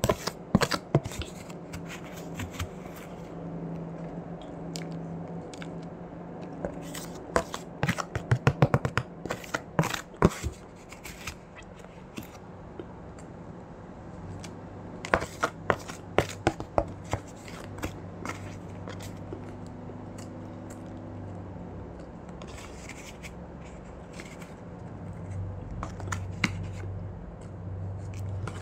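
Bites of frozen matcha ice crunching in the mouth, in several clusters of sharp crunches a few seconds apart, over a low steady hum.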